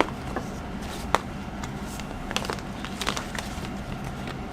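Handling noises of a planner cover being taken off a notebook: a sharp click about a second in, then light clicks and rustling.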